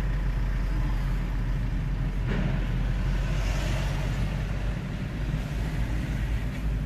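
Steady low rumble of a car's engine and tyres heard inside the moving car's cabin, with passing traffic; a brief knock about two seconds in.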